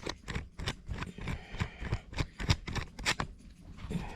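Irregular sharp clicks and light scrapes, several a second, as a refrigerator's start relay and overload protector are handled and fitted back together.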